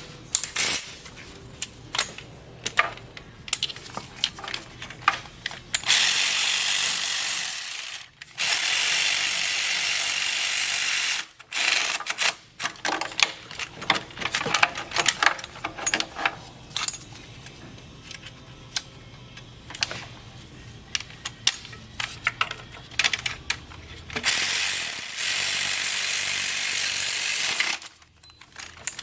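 Hand tools clicking and rattling against metal, like a ratchet being worked, with three long bursts of loud hissing lasting a few seconds each.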